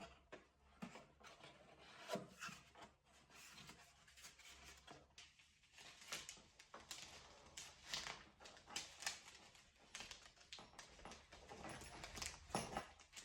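Faint handling sounds of macrame work: soft rustling of cord and scattered light clicks of small hard pieces, busier in the second half.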